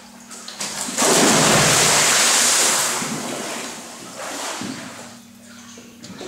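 A person jumping into a small indoor pool: a big splash about a second in, then water churning and sloshing that dies away over the next couple of seconds.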